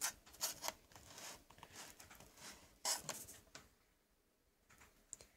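Scrapes and clicks of a plastic jar terrarium and its screw lid being handled, with soft rubbing between; the sharpest clicks come at the start, about half a second in, and just under three seconds in.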